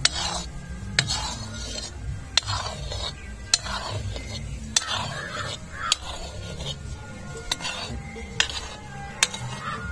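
A metal ladle stirring in an iron kadhai, clinking sharply against the pan about once a second, with scraping in between.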